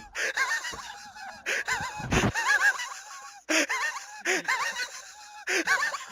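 A person's high-pitched, squeaky wheezing laughter in about six gasping bursts, with breath drawn in between, the laughter of someone laughing so hard their chest hurts.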